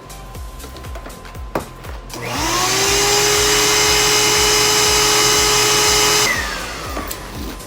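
An electric motor spins up about two seconds in, runs at a steady high whine for about four seconds, then winds down. Background music plays throughout.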